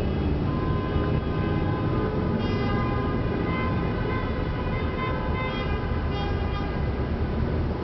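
Car horns honking in a road tunnel: several horn tones of different pitches overlap and come and go, with new blasts starting about two and a half seconds in and again around five and a half seconds. A steady traffic rumble runs underneath.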